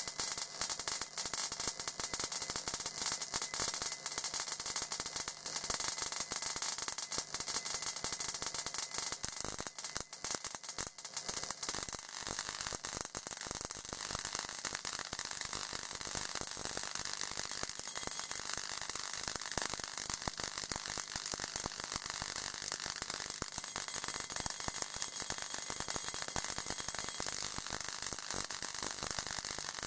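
Continuous dense crackling hiss of high-voltage sparking as a Leyden-jar capacitor bank, charged from a high-voltage source, discharges through a specially prepared 200-watt incandescent bulb. The crackle is sharper and more uneven about ten seconds in.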